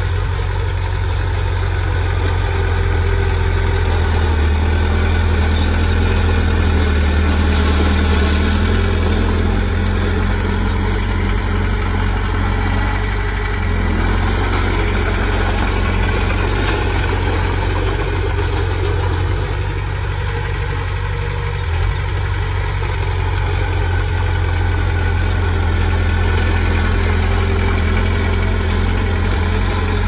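Komatsu D20P bulldozer's diesel engine running steadily as it works. Its note shifts about halfway through, and there is a single brief knock about two-thirds of the way in.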